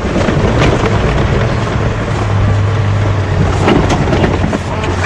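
Off-road 4x4's engine running at a steady low drone as it crawls down rough, stepped ground, with a few knocks and rattles over a rumble of noise.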